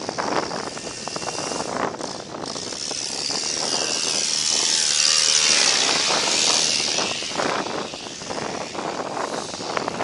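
A vehicle passing: a rushing sound that swells to a peak about halfway through and then fades, over wind noise on the microphone of a moving bicycle.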